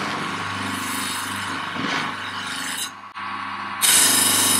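Bench grinder running with a polishing wheel spinning on it: a steady motor hum under an even rubbing hiss. The hiss breaks off about three seconds in, and a louder, harsher rub follows near the end.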